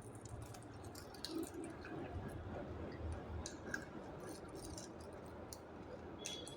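Quiet eating sounds: chewing and handling roast chicken, with scattered small clicks and soft squishes.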